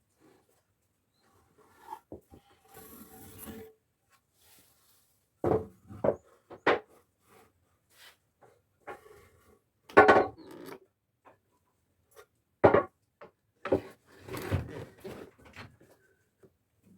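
Wooden pieces being handled: a scattering of irregular knocks of wood on wood, with a few short scraping, rubbing stretches.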